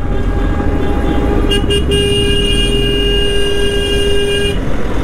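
A vehicle horn: two quick toots about a second and a half in, then one held for about two and a half seconds, over the steady running of a Royal Enfield Bullet 350's single-cylinder engine.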